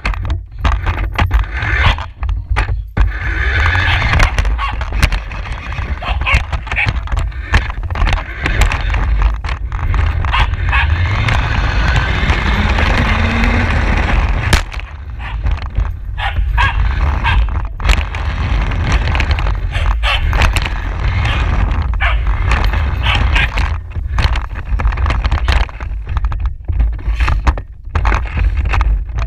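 A dog barking at close range over the rattling and rumbling of a radio-controlled car, heard from a GoPro mounted on the car.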